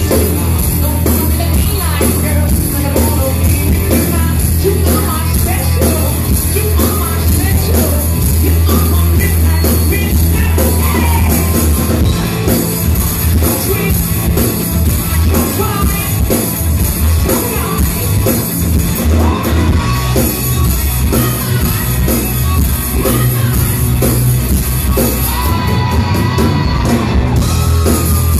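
Live rock band playing loud, with lead vocals, electric guitar, bass and drums, recorded from within the crowd in a club hall.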